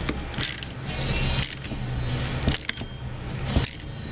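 Hand ratchet clicking in short bursts, about four of them a second apart, as it is swung back between strokes while tightening a scooter's pinion gear into its clutch bell by hand.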